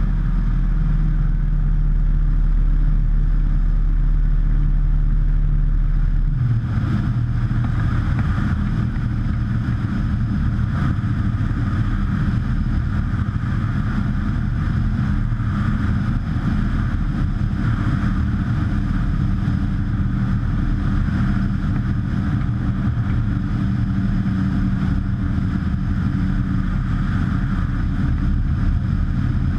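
Rotax 912UL four-cylinder four-stroke engine and propeller of a Drifter ultralight running steadily in flight. The engine note shifts abruptly about six seconds in.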